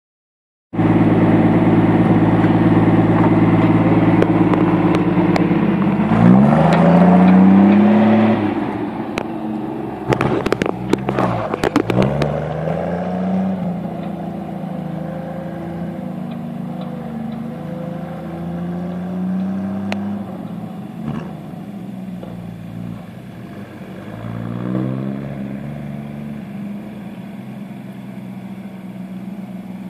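Volvo TL11 4x4 truck engine idling, then revving up about six seconds in, with a burst of clattering a few seconds later. The truck then pulls away, its revs climbing and dropping in steps as it shifts up, and the engine fades into the distance.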